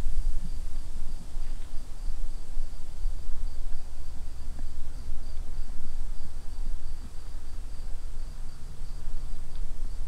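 High, evenly pulsing trill of insects such as crickets, over a low steady rumble.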